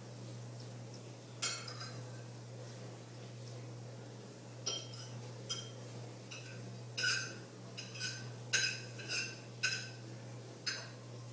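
A cat hiccuping: about a dozen short, sharp hics, sparse at first, then coming roughly twice a second from about seven seconds in. The hiccups come from drinking water too fast.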